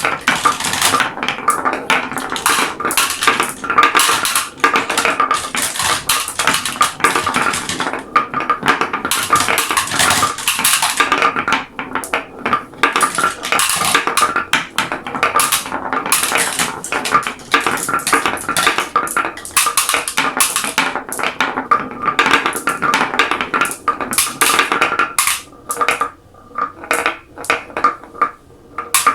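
Glass marbles rolling and clacking down a marble run: a dense stream of clicks over a steady rolling rattle, thinning to scattered separate clicks near the end as fewer marbles come through.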